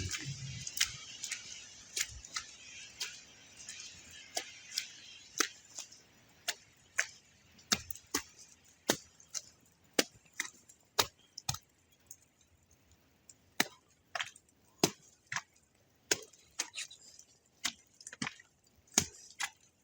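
Footsteps crunching in snow on a steep trail, about two steps a second, stopping briefly past the middle and then going on. A faint hiss under the first few steps fades away.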